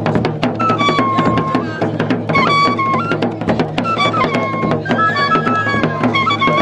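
Gurunsi traditional drums beating a fast, dense rhythm, with a high piping wind tune in short, repeated falling phrases over them from about half a second in.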